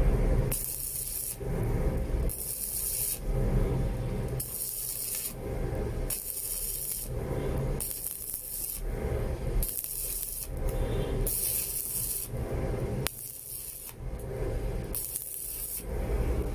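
Stick-welding arc from a Sasuke LCD 220S inverter welder with a 3.2 mm electrode, struck and broken again and again by tap-and-release: about ten short bursts of crackling hiss, one every second or two. Hot start and arc force are set to maximum.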